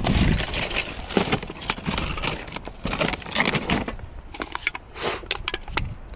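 Dry scrub and grass rustling and twigs crackling as someone pushes through undergrowth on foot, with a large dog food sack rustling as it is carried along.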